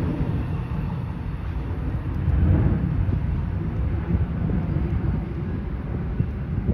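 Amtrak passenger train cars rolling past on the rails: a steady, heavy, low rumble with no horn.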